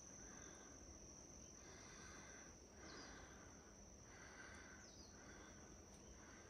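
Near silence with faint insects: a steady high thin trill, with softer chirps repeating about once a second.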